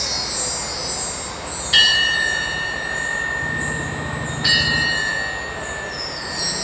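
Bar chimes (mark tree) swept again and again, a glittering run of high metal tinkles. A pair of tingsha-style hand cymbals is struck twice, about two seconds in and again about four and a half seconds in. Each strike rings on as a clear held tone under the chimes.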